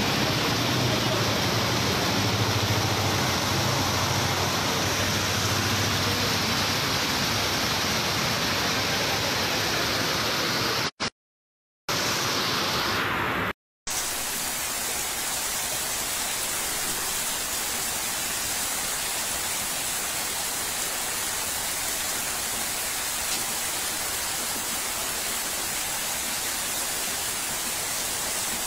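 Heavy rain falling, a steady hiss with water running. A low hum lies under it in the first part. The sound cuts out briefly twice near the middle.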